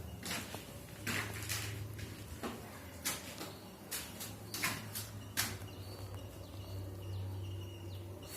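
Irregular sharp knocks and taps, about eight of them and mostly in the first five and a half seconds, over a steady low hum.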